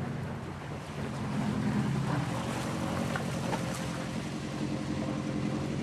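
A car's engine running at low speed as the car rolls slowly up and pulls to a stop, a steady low hum.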